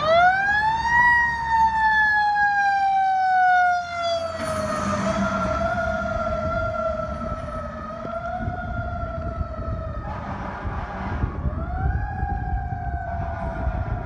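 Federal Q2B mechanical siren on a fire engine winding up to a peak about a second in, then slowly coasting down in pitch. It is wound up again briefly near the end and falls off again.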